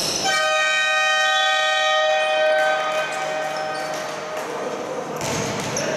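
Basketball arena's horn sounding one long steady tone for about two and a half seconds, then dying away in the hall's echo, marking the end of the first quarter. Court and crowd noise comes back near the end.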